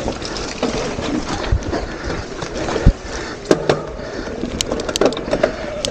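Mountain bike riding a dirt singletrack: a steady rush of wind and tyre noise, with scattered sharp knocks and rattles as the bike goes over bumps.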